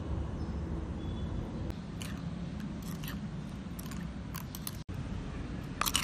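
A spoon stirring and scooping wet chili-garlic sauce in a stone mortar. It makes a few light scrapes and clicks against the stone, with a sharper scrape near the end, over a steady low background rumble.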